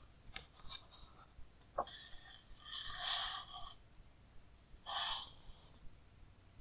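Heavy pages of a large hardcover art book being turned by hand: a few light paper ticks, a sharp tap a little before two seconds, then two short paper swishes.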